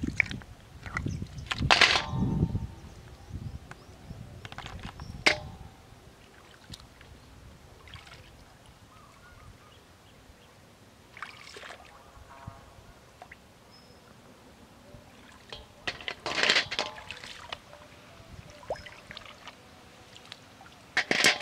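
Freshwater snail shells dropped into a metal basin, each landing with a sharp clack and a short metallic ring, with water dripping and sloshing around wading legs. The loudest clacks come about two seconds in, about five seconds in, around sixteen seconds and at the end, with quieter water sounds between.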